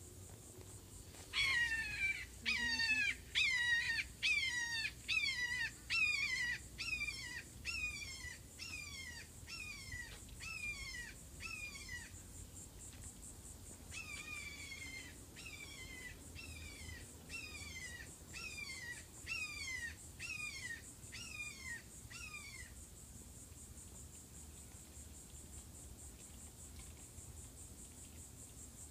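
Recorded red-shouldered hawk calls played through a phone speaker: two long runs of repeated, down-slurred screams, about two a second, with a short break between the runs. It is a playback call meant to draw a response from a lost hawk.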